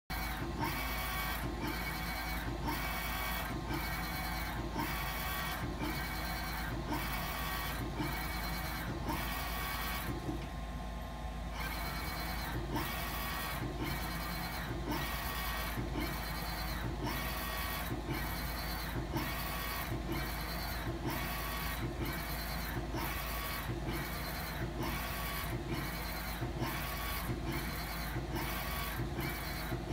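Direct-to-garment inkjet printer printing onto a T-shirt: the print head carriage shuttles back and forth in a steady rhythm of about one and a half passes a second, each pass with a short motor whine, pausing briefly about a third of the way through. A steady low hum runs underneath.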